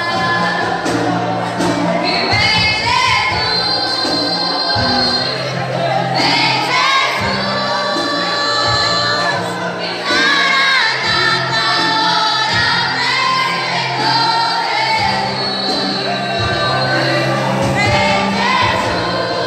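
Congregational gospel worship singing, a group of voices singing together with instrumental accompaniment.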